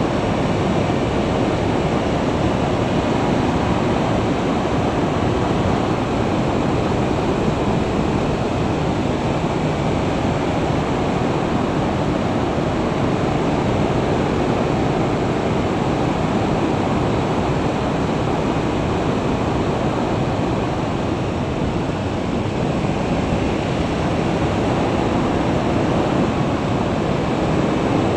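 Steady rushing wind noise on the camera microphone of a motorcycle travelling at about 40 to 50 mph, with a faint engine hum and tyre noise underneath.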